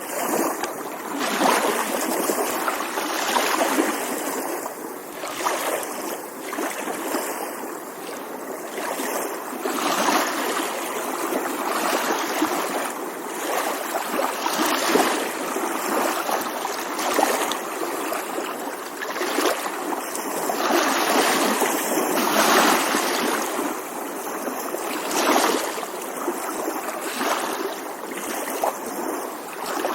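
Small waves lapping and splashing against a shore, swelling and easing every second or two.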